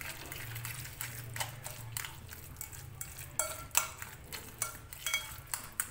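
A metal fork stirring an egg into mashed tofu in a glass bowl, with irregular clinks of the fork against the glass, sharpest in the second half.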